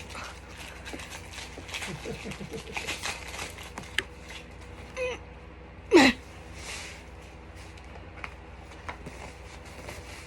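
Trading cards being handled and sorted: light rustling and small clicks of the cards. About six seconds in there is one short high squeal that falls quickly in pitch, the loudest sound, with a steady faint hum underneath.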